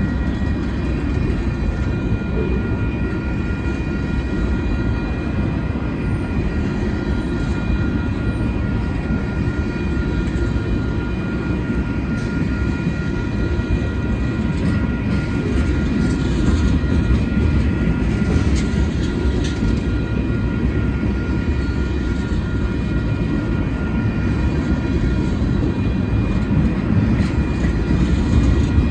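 Freight train tank cars rolling past at close range: a steady low rumble of steel wheels on rail, with a faint steady high whine above it and scattered clicks about halfway through.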